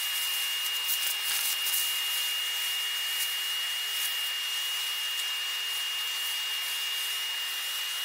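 Workshop vacuum running steadily with a constant high motor whine, its bare hose with no nozzle sucking dust and grit off the floor, with faint scattered crackles of debris going in during the first few seconds.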